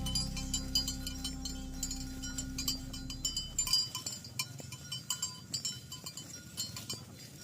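Bells on walking cattle clinking and jangling irregularly. A low steady tone is held through the first half and then stops.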